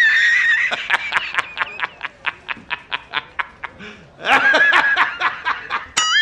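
A man's high-pitched laughter in quick pulses, about five a second, from a film clip. It breaks off around three seconds in, starts again a second later, and a wavering high tone sets in near the end.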